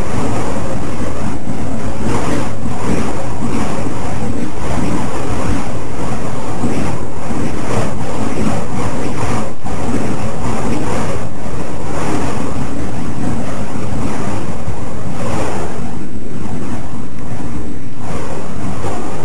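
Loud, steady rushing noise that swells and eases irregularly, about once a second: burning fire poi whooshing as they are spun, heard together with wind buffeting the microphone.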